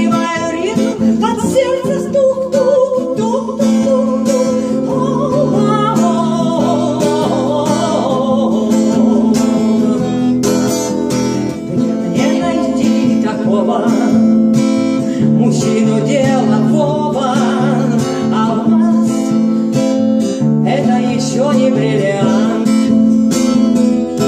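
Music: a strummed acoustic guitar with other instruments, an instrumental passage of a song with no sung words.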